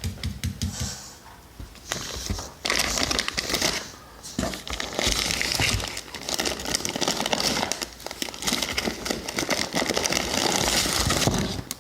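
Plastic food packaging crinkling and rustling as frozen packaged foods are handled and lifted out of an insulated shipping box, with small clicks and knocks throughout; the rustling is light for the first couple of seconds, then heavy and continuous until near the end.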